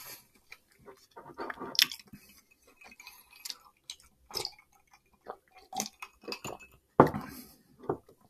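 Close-miked eating sounds: chewing on mouthfuls of Chinese takeout fried rice, a sip from a mug, and chopsticks and plastic takeout containers clicking, in short irregular bursts with a louder knock about seven seconds in.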